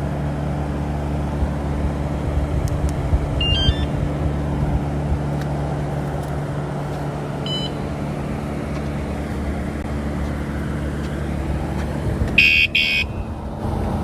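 A vehicle engine runs steadily throughout. About twelve seconds in, the wsdcam 113 dB bike alarm gives two quick, loud electronic chirps, with a couple of fainter short beeps earlier.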